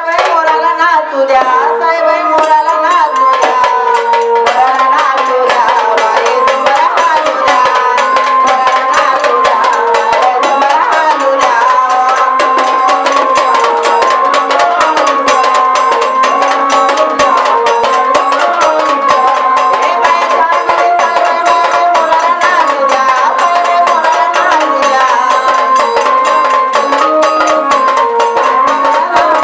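Gondhal devotional folk music: a wavering melody over a steady drone, driven by fast, dense hand-drum beats.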